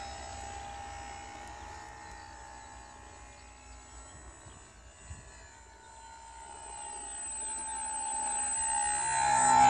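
Radio-controlled model airplane's motor and propeller giving a steady whine as it flies past. It fades as the plane moves away, then grows loud near the end as it comes back low and close.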